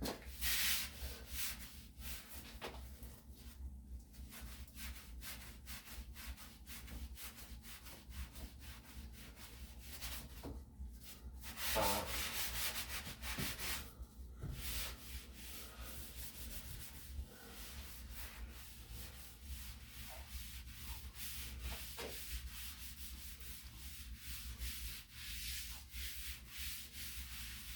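A damp sponge rubbing over dried drywall joint compound on a wall: wet sanding in quick, repeated up-and-down strokes. The strokes are a little louder near the start and around the middle.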